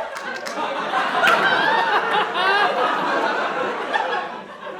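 Audience laughing in a hall, many voices at once, swelling about a second in and tailing off near the end.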